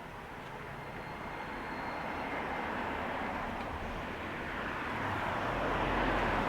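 Road traffic: a passing vehicle's engine and tyre noise growing steadily louder as it approaches, loudest near the end.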